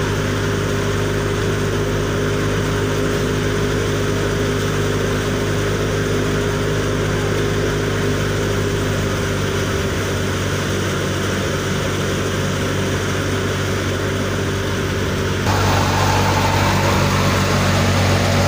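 Tractor-driven threshing machine running steadily under load, a constant mechanical drone. About three-quarters of the way through it gets louder and harsher.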